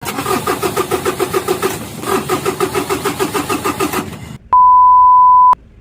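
Mitsubishi Fuso 6D40 inline-six diesel engine being cranked by its starter on a cold morning, turning over in a fast, even rhythm in two stretches with a brief pause between, without catching: a hard start. Near the end, a loud steady beep lasts about a second.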